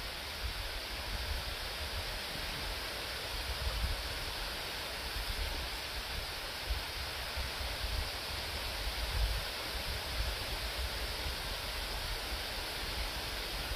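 Steady outdoor wind noise: an even rushing hiss of wind through willow leaves, with an uneven low rumble of wind buffeting the microphone.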